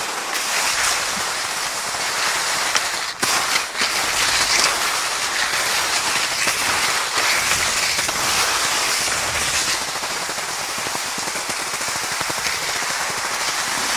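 Cross-country skis sliding over snow at speed while towed by a dog: a steady scraping hiss with fine crackle, dipping briefly about three seconds in.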